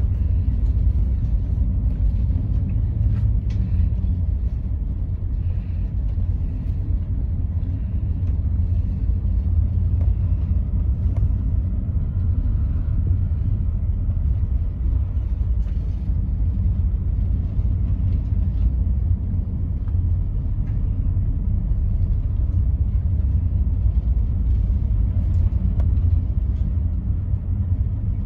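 Steady low rumble aboard a container ship under way through rough sea.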